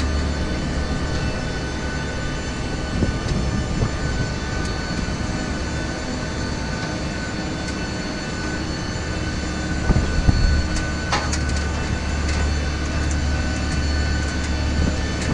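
Steady low rumble and hum of a Boeing 737-800 airliner heard from inside the passenger cabin, with a few faint steady whines above it. A few short clicks and knocks come about ten to eleven seconds in.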